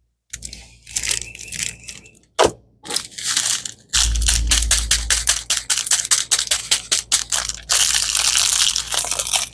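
Plastic packaging from a diamond painting kit crinkling and rustling as it is handled, with a sharp knock about two and a half seconds in. From about four seconds in comes a fast run of crackles, then a stretch of dense crinkling near the end.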